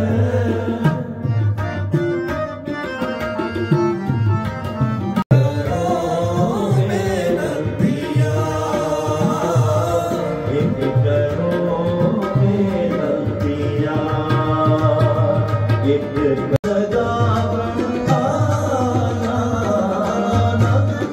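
Sikh kirtan: a ragi group's harmonium and tabla playing with a singer's voice, the tabla keeping a steady beat. The sound drops out for an instant twice, about 5 and 17 seconds in.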